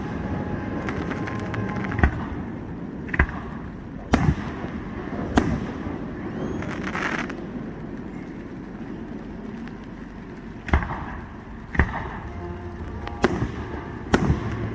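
Aerial fireworks going off: sharp bangs a second or so apart, with a crackling burst about seven seconds in and a pause before more bangs in the second half.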